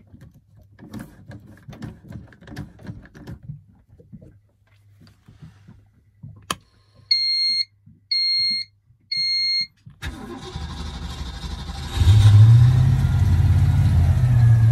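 A click and three short electronic beeps, then the starter cranks the Ford Windsor 351 (5.8-litre) marine V8 for about two seconds before it catches and settles into a steady idle.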